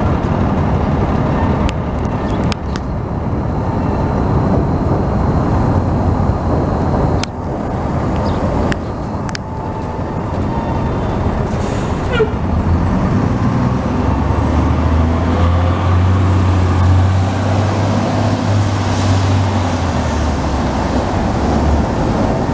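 Chicago 'L' rapid-transit train running over the steel elevated Loop structure, with several sharp clacks of wheels over the rail joints in the first half, over a steady din of downtown street traffic. A low drone comes in about halfway and holds until near the end.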